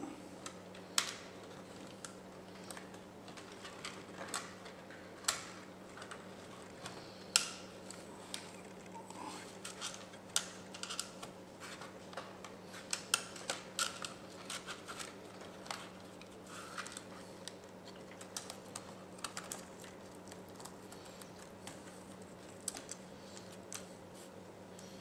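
Irregular plastic clicks and taps of an HP Pavilion laptop keyboard being handled and pressed down into the chassis, over a faint steady hum. The clicks come thick in the middle and thin out after about 20 seconds.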